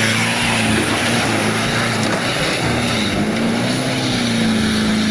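Tanker truck's engine labouring as it ploughs through deep mud, a steady engine note that dips and rises again a little past halfway, over a constant rush and splash of churned mud and water.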